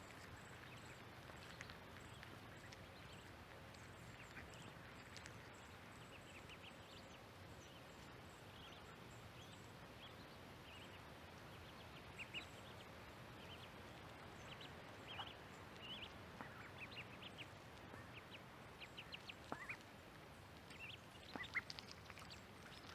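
Faint, high-pitched peeping of ducklings: scattered short calls that come more often and a little louder toward the end, over a quiet background hiss.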